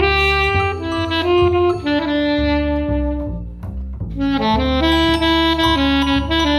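Saxophone playing a slow melody in long held notes over a double bass, with a short pause about halfway through.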